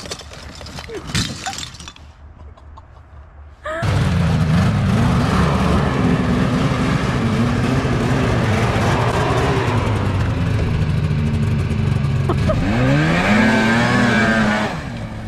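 Snowmobile engine running under throttle as it is ridden, its pitch dipping and then climbing again near the end. It starts suddenly about four seconds in, after a quieter outdoor stretch.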